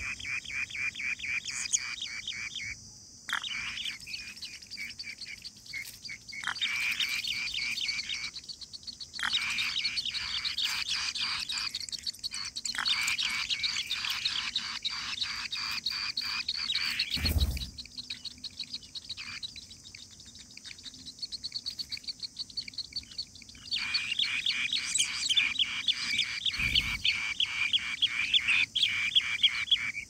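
Asian green bee-eater nestlings begging: fast trains of short chirps that stop and start again several times. A steady high insect drone runs underneath, and there are two dull thumps about halfway through and near the end.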